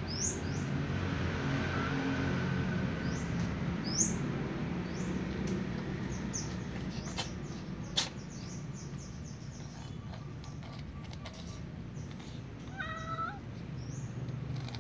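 A domestic cat gives one short meow near the end. It sounds over a steady low hum, with many short high chirps and two sharp clicks about four and eight seconds in.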